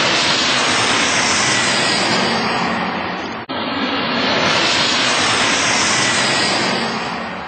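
Loud jet airliner engine noise, a dense hiss with a faint falling whine, broken by a sudden brief dropout about three and a half seconds in and fading near the end.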